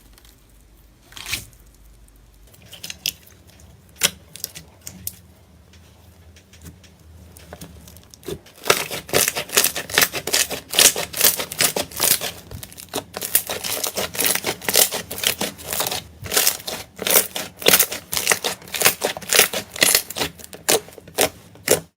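Slime being pressed and worked by hand, giving sharp crackling and popping clicks. The clicks are sparse at first and turn into a dense, steady crackle about eight seconds in.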